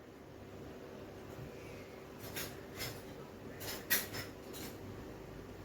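Several short, light clicks and clinks of kitchen utensils and dishes being handled, the sharpest about four seconds in, over a faint steady hum.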